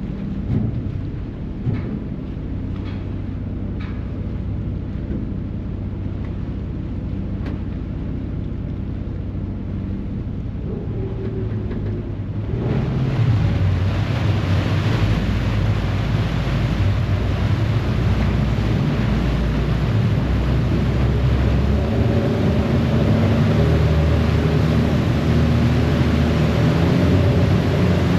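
A harbour ferry's engines run low and steady, with a few knocks in the first two seconds. About twelve seconds in the engines power up and the propeller wash churns, getting louder as the ferry pulls away from the wharf.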